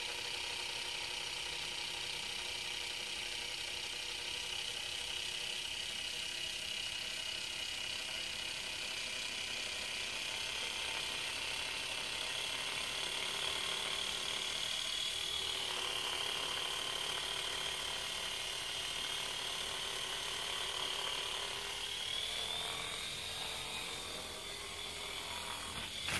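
Air Hogs Twin Thunder toy RC tandem-rotor helicopter in flight: its small electric motors, gearing and rotors give a steady high-pitched whine that wavers slightly in pitch.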